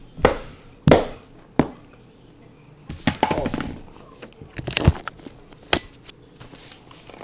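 Handling noise: several sharp knocks and a short rustling clatter as handmade plastic puppets are moved about and bumped on a tiled floor. Two loud knocks come in the first second, the clatter about three seconds in, and more single knocks near five and six seconds.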